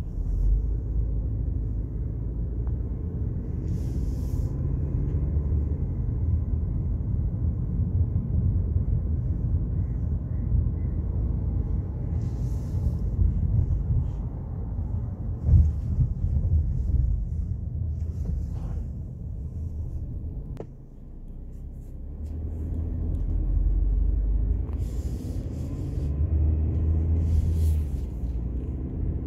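Low, steady rumble of a car's engine and tyres heard from inside the moving car, with a short knock about halfway through and a brief easing about two-thirds through.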